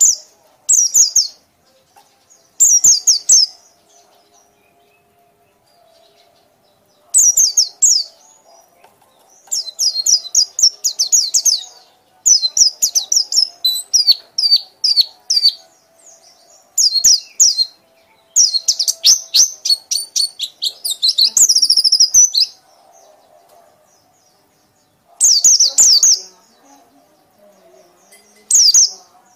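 A small songbird's rapid, high-pitched chattering calls. The notes come in about ten quick bursts, each a second or a few seconds long, with short pauses between them.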